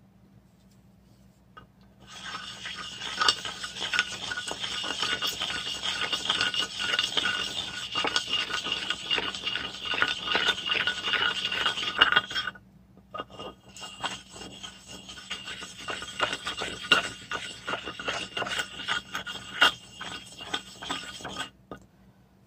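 A lump of red ochre ground against a wet stone slab to make paint: a continuous gritty stone-on-stone scraping with a squeaky edge and many small clicks. It starts about two seconds in, stops for about a second near the middle, and ends shortly before the close.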